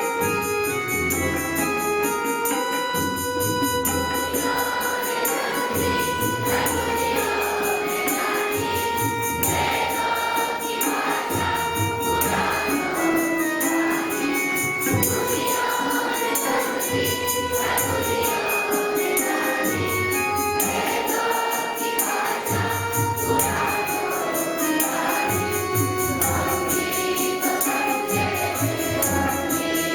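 A song: a group of voices singing over instruments, with a fast, even jingling beat running under it.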